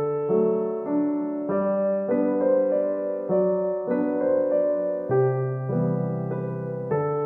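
Background piano music: held notes and chords, with a new note or chord struck about every half second.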